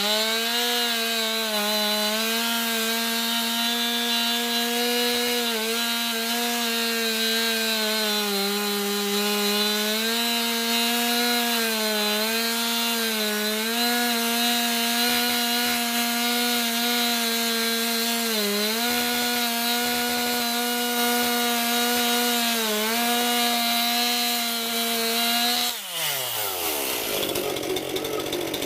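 Chainsaw running at full throttle through a large fallen tree trunk, its pitch steady with short dips as the chain bogs in the wood. Near the end the throttle is released and the engine winds down toward idle.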